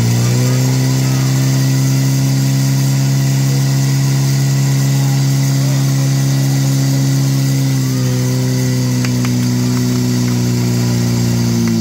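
Portable fire pump's engine running steadily at high speed while it pumps water to the attack lines. Its pitch steps up slightly just after the start and drops a little about two-thirds of the way through.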